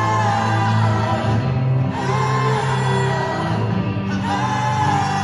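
Live pop-rock band playing a song in concert, with long held sung notes over steady bass and drums, picked up from within a large hall.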